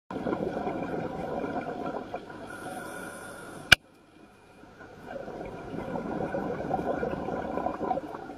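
Scuba diver breathing through a regulator underwater: a burbling rush of exhaled bubbles, then a short high hiss of inhaling, and the bubbles again. A sharp click just under four seconds in, followed by a moment of near silence.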